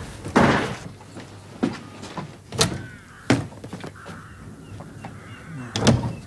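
Footsteps knocking on wooden stairs and floorboards, several separate, irregular thuds, with a door being opened.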